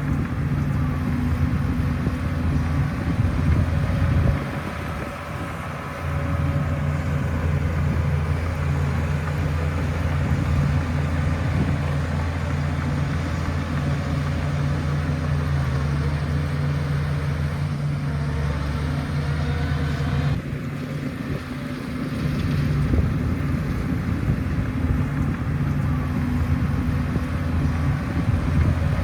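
Shantui bulldozer's diesel engine running under load with a steady low drone. It eases off twice, about four seconds in and again about twenty seconds in, then picks back up.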